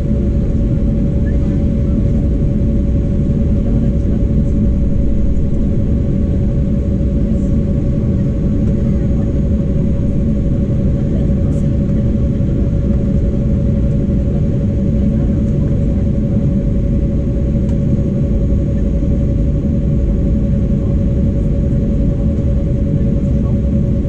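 Jet cabin noise inside an Embraer 195: its GE CF34-10E turbofans running steadily at low power, a heavy rumble under a steady whine, with no rise in thrust yet.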